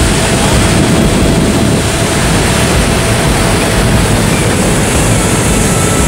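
Niagara Falls close up: a loud, steady rush of water plunging over the brink into the gorge, with no let-up.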